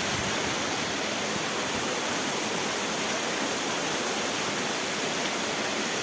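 Waterfall: water rushing steadily down rock cascades, an even hiss that does not change.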